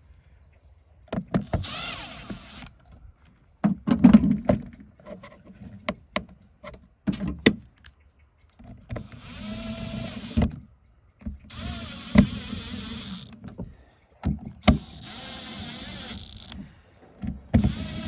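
Red Milwaukee cordless drill-driver driving the lock mechanism's screws into a caravan door. It runs in about five short spurts of one to two seconds each, with clicks and knocks from the bit and screws between them.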